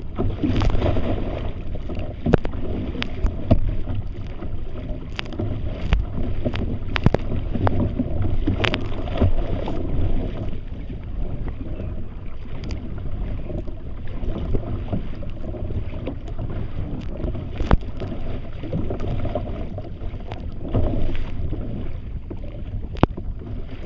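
Choppy water lapping and slapping against a kayak's hull, with wind buffeting the microphone and sharp irregular knocks now and then.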